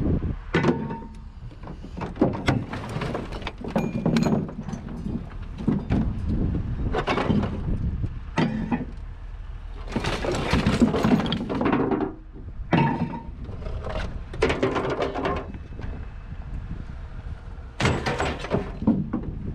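Scrap metal being pulled from a pickup truck bed and thrown onto a scrap pile: a string of separate clanks and crashes, some running on into longer rattling clatter.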